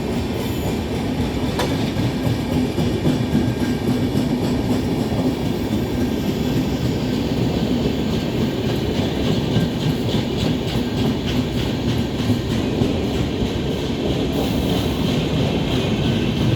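Passenger train rolling along the track: a steady rumble with the wheels clacking over rail joints.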